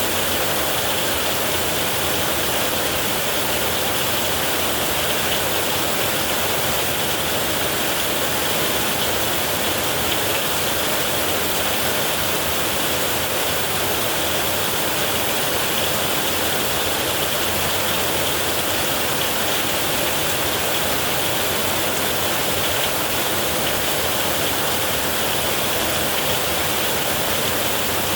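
Heavy rain falling steadily on a metal roof, a dense, even hiss with no break or thunderclap.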